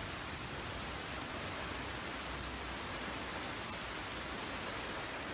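Heavy rain pouring steadily: an even, unbroken hiss.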